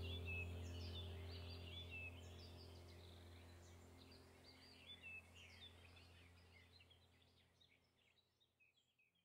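Faint birds chirping over a steady low hum, the whole fading out steadily until it is barely there at the end.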